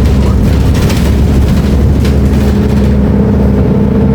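Diesel engine of a Volvo B340M bus running with a steady low drone, its hum settling into a steadier pitch about three seconds in, with a few short knocks or rattles.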